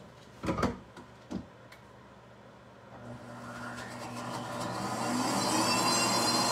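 Two knocks as the blender jar is set on its base, then a countertop blender's motor starts about three seconds in and builds to a steady high whir, blending a thick pancake batter.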